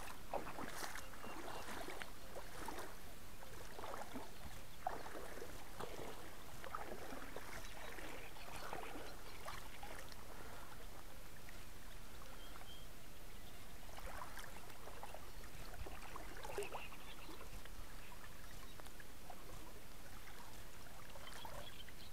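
Outdoor waterside ambience: a steady hiss with scattered short chirps and knocks, most of them in the first ten seconds and again around fifteen seconds in.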